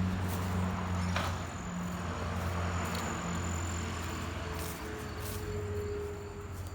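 Outdoor late-summer background: insects trilling steadily on one high note over a steady low hum. A faint steady tone joins about four and a half seconds in.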